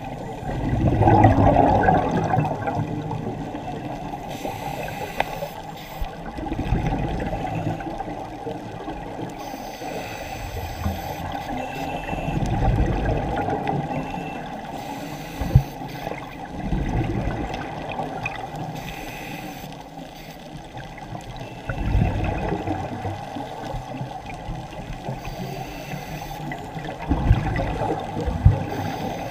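Scuba regulator breathing heard underwater: exhaust bubbles rush out in a burst about every five seconds, with a low steady hiss between, and a couple of sharp clicks.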